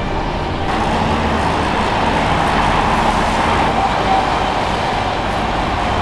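Steady motorway traffic noise, a continuous tyre-and-engine hum with no distinct knocks.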